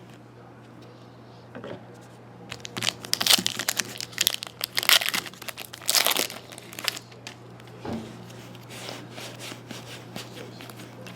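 Trading card pack and cards being handled: irregular crinkling and rustling, busiest in the middle, over a faint steady low hum.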